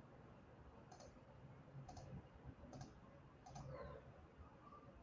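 Five faint clicks of a computer mouse, roughly a second apart, over near silence.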